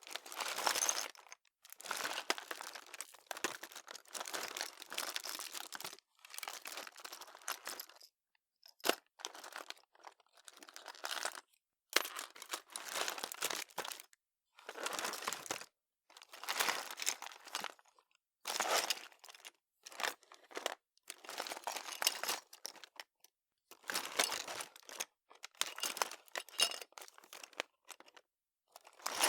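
Hands rummaging through a desk drawer: the contents rustle, crinkle and clatter in irregular bursts of a second or two, broken by short pauses.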